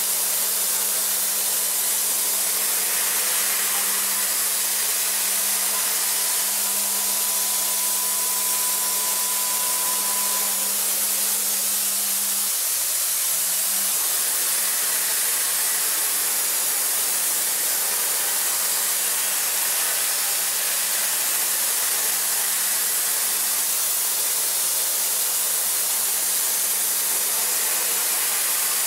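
DMG MORI CMX1100V vertical machining center milling metal at high speed with a Sandvik end mill in a hydraulic holder: a steady loud hiss over a steady hum. The hum dips and comes back about 13 seconds in, and a faint thin whine sounds for a few seconds earlier on.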